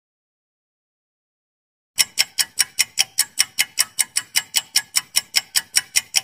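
Countdown-timer clock-ticking sound effect: a fast, even run of sharp ticks, about five a second, starting about two seconds in after a dead-silent gap.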